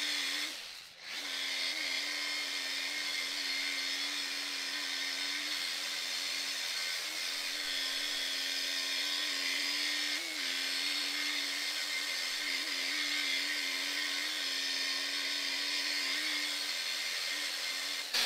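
Electric machine polisher running on car-style paint with polishing compound: a steady motor hum and pad hiss, the pitch dipping slightly now and then as the pad is pressed. It cuts out briefly about a second in, then starts again.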